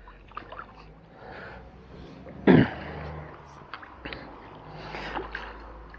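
A person clearing their throat once, about two and a half seconds in, with a few faint clicks around it.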